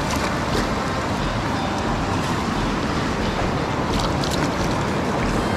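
Steady rushing of river water around a wader, with some wind on the microphone and a few light clicks about four seconds in.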